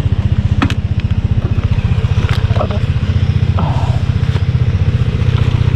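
Yamaha XMAX scooter's single-cylinder engine running steadily with a rapid, even pulse, a few sharp clicks and knocks on top.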